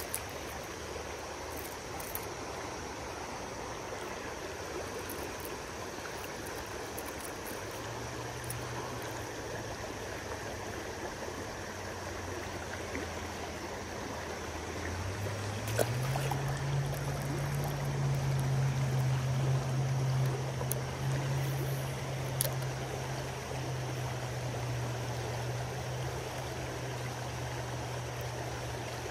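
Shallow creek riffle: fast water rushing steadily over rocks. A low steady hum comes in partway through and steps up in pitch and loudness about halfway, with a few faint clicks.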